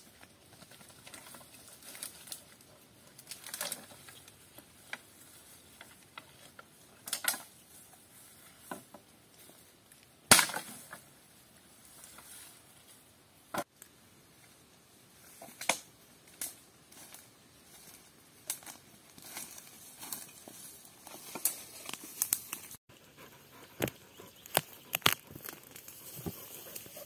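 Rustling in tall grass and brush with scattered, irregular snaps and cracks of dead wood as someone moves through it, handling fallen branches. One sharp crack about ten seconds in is the loudest.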